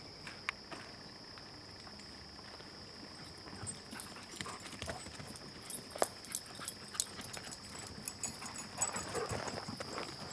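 Irregular footsteps crunching on dry leaf litter, growing busier about a third of the way in, over a steady high insect trill.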